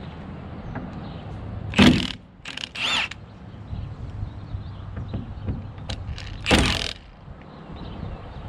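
Clunks from a Jeep Wrangler door and its hinges being worked on. There are three loud knocks: about two seconds in, a second one with a short squeak about three seconds in, and a third about six and a half seconds in.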